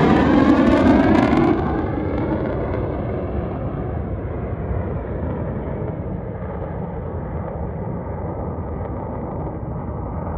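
F-35A fighter's F135 jet engine passing low overhead on landing approach with its gear down. The loud roar drops abruptly about a second and a half in to a more distant jet rumble that slowly fades.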